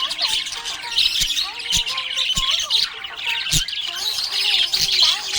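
Budgerigar chattering: a continuous run of chirps and squawks broken by sharp clicks.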